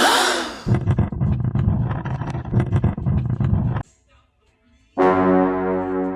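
Edited-in comic sound effects: a quick whooshing sweep, then a low buzzing rattle for about three seconds that stops abruptly. After a short silence comes a loud, brass-like held note that slowly fades.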